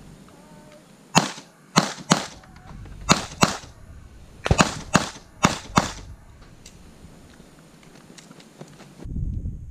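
Nine gunshots from a USPSA competitor's gun, mostly fired in quick pairs about a third of a second apart: double taps on each target. The shots fall between about one and six seconds in.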